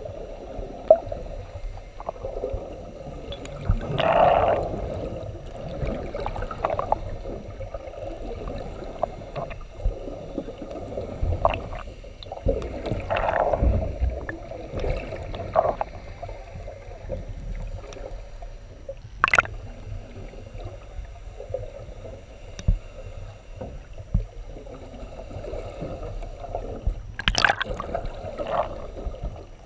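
Muffled underwater sound picked up through an action camera's waterproof housing: water sloshing and gurgling just below the surface in recurring swells, with a few sharp clicks or knocks, the loudest two about two-thirds of the way in and near the end.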